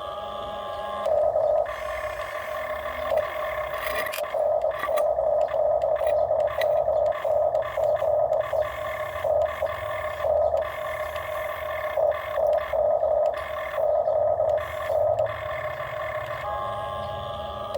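Whining electric motors of a radio-controlled toy construction vehicle, starting and stopping in short irregular spurts as the controls are worked.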